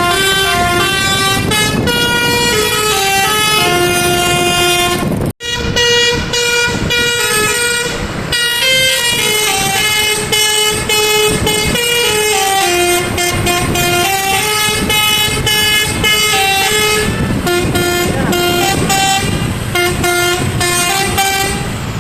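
Telolet basuri musical air horn playing a tune as a string of held, stepped notes, over a steady low rumble. It breaks off for an instant about five seconds in.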